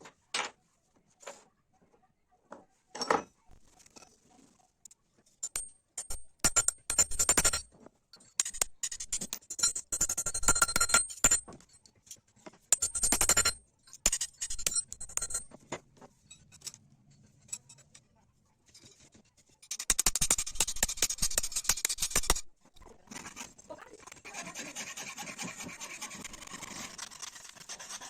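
Metalwork on an old knife: scattered taps and clinks, then irregular bursts of metal scraping, settling near the end into steady rubbing like filing or sanding.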